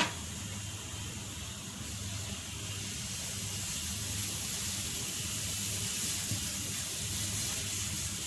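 Pancake batter sizzling in a hot nonstick frying pan: a steady soft hiss, a little louder from about two seconds in as fresh spoonfuls of batter go into the pan.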